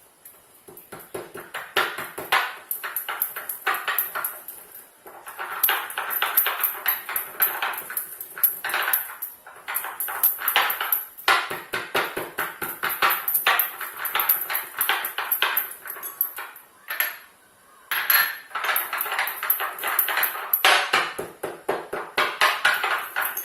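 Fennel seeds being coarsely pounded with a pestle in a mortar: rapid, repeated sharp strikes in bouts, broken by short pauses.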